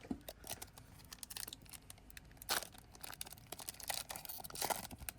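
A Pokémon booster pack's foil wrapper being torn open and crinkled by hand: faint, irregular crackling with a louder rip about halfway through and another near the end.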